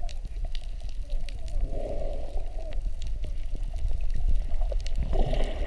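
Underwater sound picked up by a camera held below the surface: a steady low rumble of moving water with scattered crackling clicks, and a muffled bubbling swell about two seconds in and again near the end.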